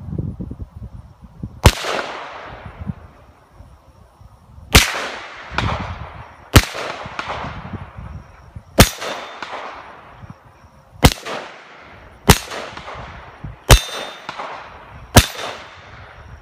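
Eight single gunshots, unevenly spaced one to three seconds apart, each trailing off in a long echo.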